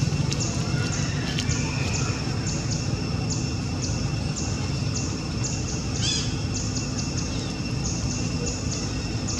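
Outdoor wildlife ambience: a short, high chirp repeats about twice a second over a steady high-pitched drone and a low rumble. A brief, different call sounds about six seconds in.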